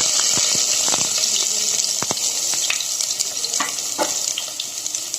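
Chopped onions sizzling in hot oil in a pan, the hiss slowly easing off, with scattered clicks against the pan.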